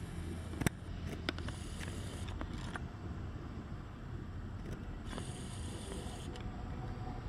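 A steady low rumble with a few sharp clicks and light rubbing noises in the first three seconds, typical of a handheld camera being moved and adjusted.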